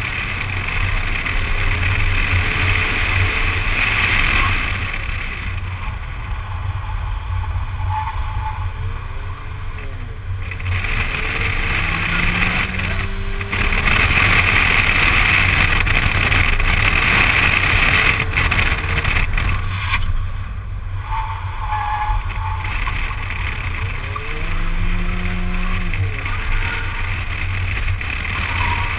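Wind buffeting the microphone of a camera mounted outside a stock automatic 2007 Ford Focus driven hard through an autocross course. Under the buffeting, engine and tyre noise swells louder in stretches, and the engine's pitch rises and falls.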